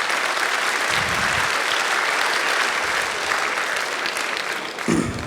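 Audience applauding: many hands clapping in a steady patter that eases off near the end.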